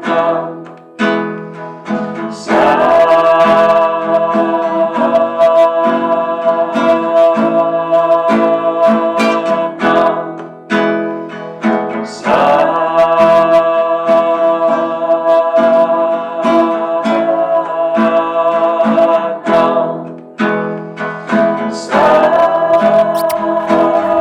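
Acoustic guitar music, plucked chords under a long held note that comes in three times, about every ten seconds.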